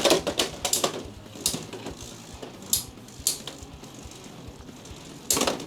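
Two plastic-and-metal Beyblade X spinning tops battling in a stadium: a rapid run of clattering hits in the first second, then scattered sharp clicks over a faint spinning hum, and a cluster of hard hits near the end.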